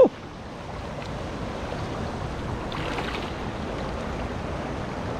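Steady outdoor noise of wind on the microphone and lapping water, opening with one short loud cry that slides quickly down in pitch.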